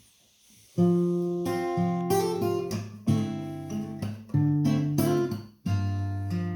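Acoustic guitar playing the chords of a song's intro, each one struck sharply and left ringing; it comes in about a second in after a near-silent start.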